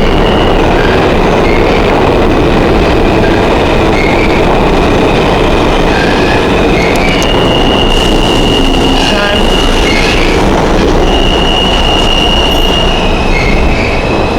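NYC subway train running on the track at a station, with a loud steady rumble and its steel wheels squealing against the rails in long high tones that shift in pitch several times.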